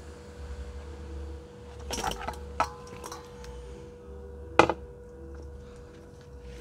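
A stainless steel bowl of sprat fish being handled: a few light clicks and knocks, then one sharp knock a little past halfway. A steady low hum runs underneath.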